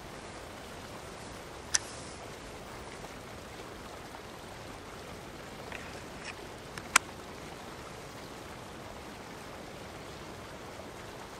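Two sharp clicks of a knife and a ferro rod snapping into a Kydex sheath, one about two seconds in and a louder one about seven seconds in, with a few faint handling ticks before the second. Under them runs a steady outdoor hiss.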